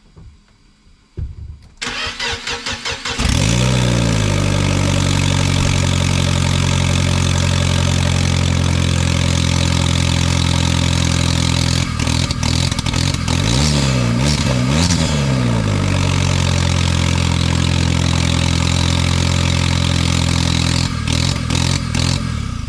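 Fiat 1.4 T-Jet turbocharged four-cylinder engine on its first test start: the starter cranks for about a second, the engine catches with a flare of revs, then settles to a steady idle. About halfway through it is revved a few times, then returns to idle.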